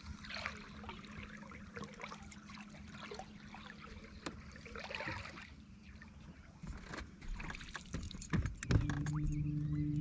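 Water splashing and lapping on a calm lake, with small splashes from jumping carp. Near the end come a few sharp knocks, then a steady low hum starts and holds.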